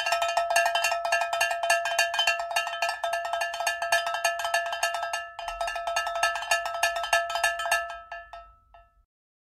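A small metal bell struck very rapidly and repeatedly, a fast clanging cartoon sound effect. It dips briefly about halfway through, then the clanging trails off near the end.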